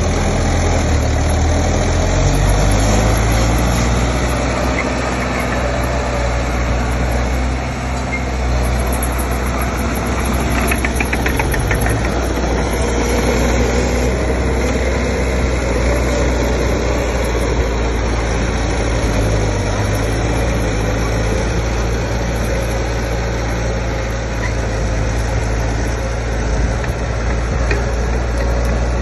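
Heavy diesel engine of earthmoving machinery running steadily at a low pitch.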